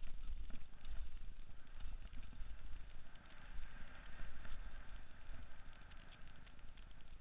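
Wind buffeting and rattling picked up by a helmet-mounted camera on a mountain bike riding downhill: a steady low rumble with scattered sharp clicks and knocks from the bike over rough ground.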